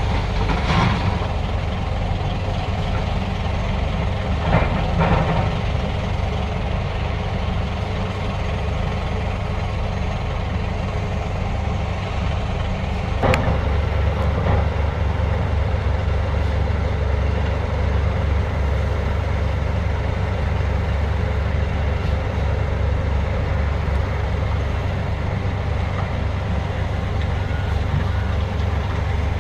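Heavy diesel engine of construction machinery running steadily with a low drone. A single sharp knock comes about 13 seconds in, after which the drone is a little stronger.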